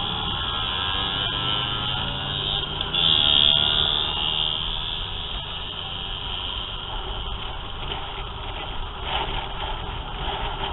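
Motor scooter engines running in a group ride through traffic, with steady wind noise over a helmet-mounted camera. There is a brief louder swell about three seconds in.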